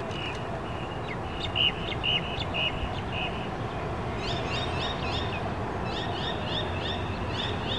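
Small songbirds chirping: a run of about five short clear notes a second and a half in, then from about four seconds a fast series of repeated sweeping chirps, over a steady low background noise.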